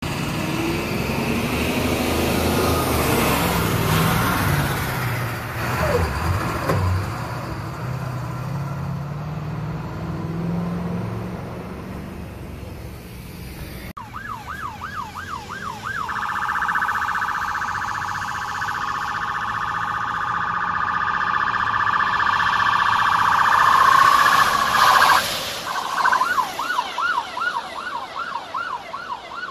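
Emergency vehicles passing with heavy engine noise. Then an electronic siren yelping in quick rising-and-falling sweeps, about three a second; it switches to a much faster warble for around nine seconds and goes back to the yelp near the end.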